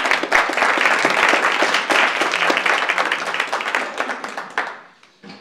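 Audience applause: many hands clapping together, dying away near the end.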